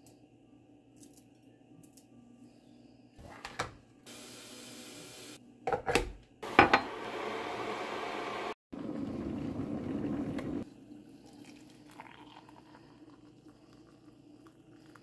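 Dishes and utensils knocking and clinking, with three stretches of steady hissing noise that begin and end abruptly.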